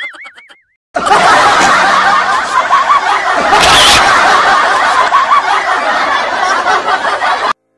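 A wavering cartoon sound effect fades out, then after a short gap a loud laugh track of many people laughing and snickering plays for about six and a half seconds and cuts off suddenly.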